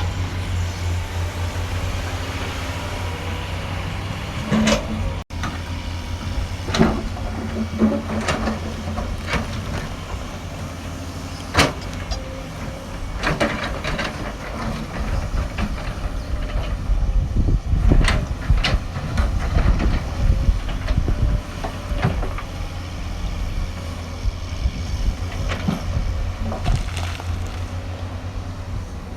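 Hydraulic excavator's diesel engine running steadily, with scattered knocks and clanks from the machine at work digging.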